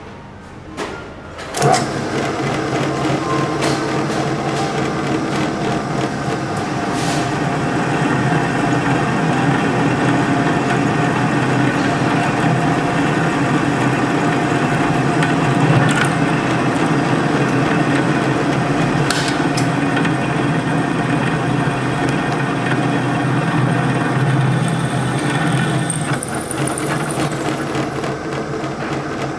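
Electric drilling machine running steadily as a twist drill bores a hole. The motor comes on about a second and a half in and keeps a steady hum, with a few sharp clicks along the way and a change in the sound near the end.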